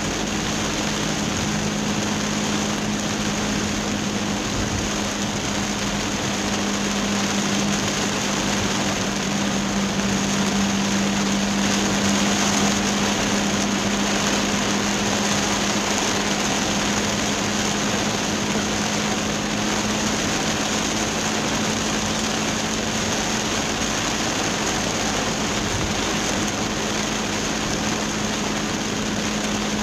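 Heavy downpour on a moving car, heard from inside through a dashcam on the windscreen: a steady hiss of rain and wet-road tyre noise over engine sound, with a steady low hum underneath.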